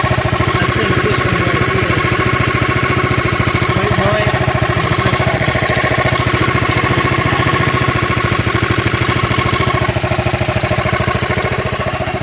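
Swapped-in 400cc liquid-cooled Yamaha scooter engine idling steadily through a Yamaha Majesty muffler. It is warming up on its first start, so that the thermostat opens while air is bled from the cooling system.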